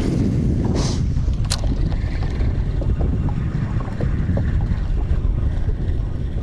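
Wind buffeting the microphone in a steady low rumble on an open boat. In the first two seconds a spinning rod is cast: a brief swish, then a sharp click about a second and a half in.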